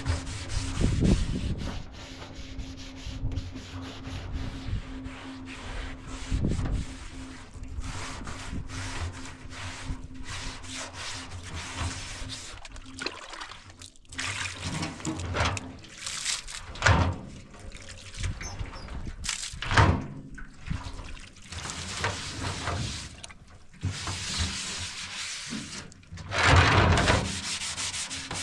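Metal barrel stove being scrubbed by hand: irregular rubbing and scraping strokes on the wet steel top and sides. Partway through, water is poured and splashed over it from a plastic basin.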